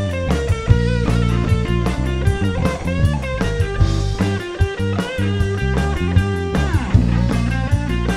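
Live full-band blues-rock instrumental break: electric guitar playing lead lines over bass and a steady drum beat, with a sliding run of notes about seven seconds in.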